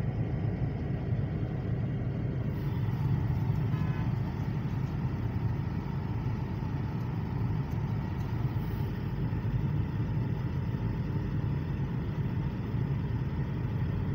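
Steady low rumble of background noise, even and unbroken, like a running motor or distant traffic.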